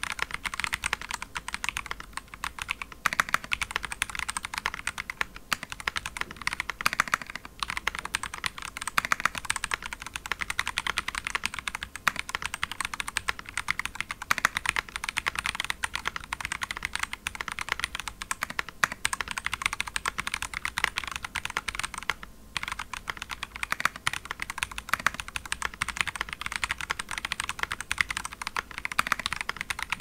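Continuous typing on a QWERTICE mechanical keyboard with lubed Holy Panda tactile switches on a polypropylene plate: a dense, steady run of keystroke clacks, broken by a short pause about three quarters of the way through.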